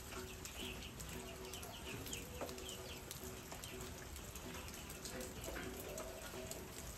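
Small birds chirping in quick, repeated short notes, over the crackle and hiss of a wood fire burning under a large covered cooking pot.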